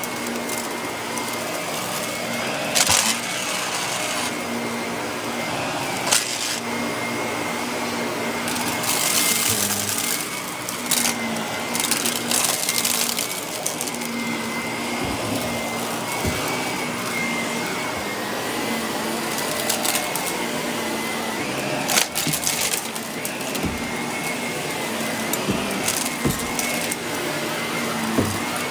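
Shark upright vacuum cleaner running over carpet with its brushroll spinning, a steady motor whine under it. Short crackling bursts come several times as small debris is sucked up, the loudest about a third of the way in and again near three quarters.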